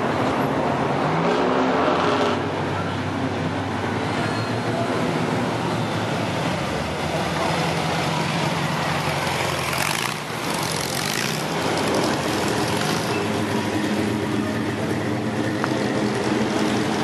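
Classic cars driving past one after another at slow parade pace, their engines running steadily, with a louder surge of engine and exhaust noise about ten seconds in.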